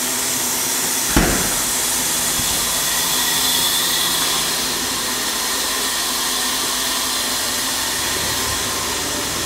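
Steady machinery hum with a strong hiss, with one sharp knock about a second in.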